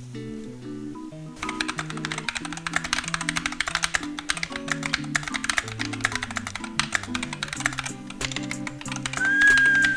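Fast typing on a Dierya DK61E 60% mechanical keyboard: a rapid, dense stream of key clacks that starts about a second and a half in, over background music. Near the end a high held tone sounds for about a second, then slides down.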